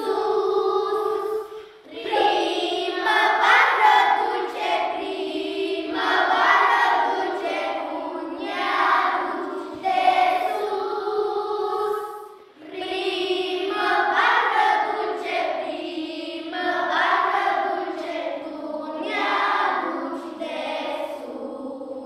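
Children's choir singing a Romanian Christian hymn, with brief breaks between phrases about two seconds in and about halfway through.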